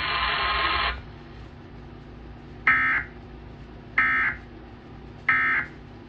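Emergency Alert System End-of-Message tones from a TV speaker: three short, identical digital data bursts about a second and a quarter apart, signalling the end of the nationwide EAS test. The broadcast's loud background hiss cuts off about a second in.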